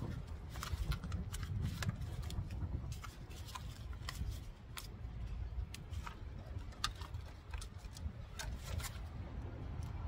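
Wind buffeting the microphone in a steady low rumble, over quick irregular crinkles and clicks of thin plastic seedling trays and nursery pots being handled, with soil rustling as a seedling is lifted out by its root ball.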